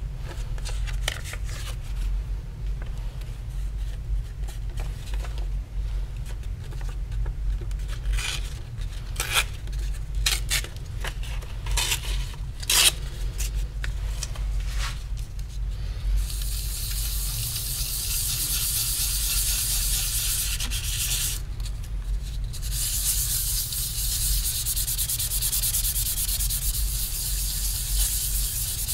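Abrasive being rubbed over a copper plate to clean and polish its surface: scattered short scraping strokes at first, then from about halfway a steady, continuous rubbing hiss with one brief pause.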